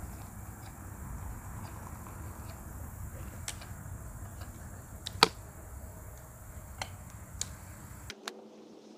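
Hot water poured from a kettle into a glass French press, followed by a few sharp clicks and knocks as the plunger lid is fitted, the loudest about five seconds in, over a steady low rumble.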